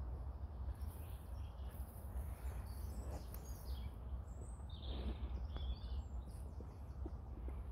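Birds chirping here and there over a steady low rumble, with a short cluster of chirps about five seconds in.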